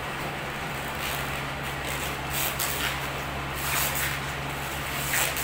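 Steady low hum, with a few brief scraping, clattering sounds as the steel frame of a multi-gym station is handled.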